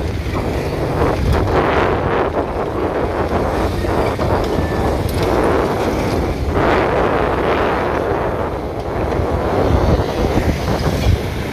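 Wind buffeting the microphone: a steady low rumble and rushing noise without let-up.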